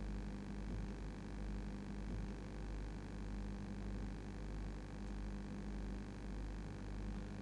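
Low steady hum with faint hiss, pulsing slightly in level: quiet room tone with no music.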